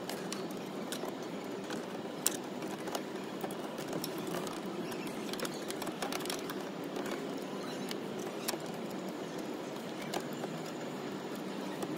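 Light, irregular metallic clicks and taps from a diesel fuel pressure regulator and its screws being handled and set in place by hand on the engine, over a steady hiss.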